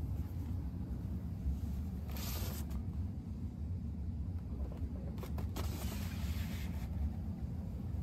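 Steady low road and engine rumble inside a moving car's cabin, with two short hissing noises, about two seconds in and again from about five and a half to seven seconds.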